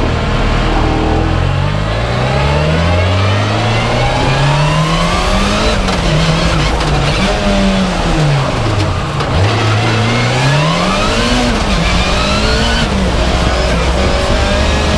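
Mitsubishi Lancer Evolution X rally car's turbocharged four-cylinder engine driven hard, heard from on board. The revs climb and fall repeatedly through gear changes and lifts, with one deep drop about nine seconds in before climbing again.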